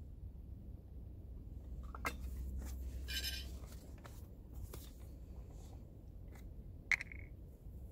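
Small handling noises of camp gear: scattered light clicks, a short rustle about three seconds in, and a sharp click with a brief ring near the end, over a low steady outdoor rumble.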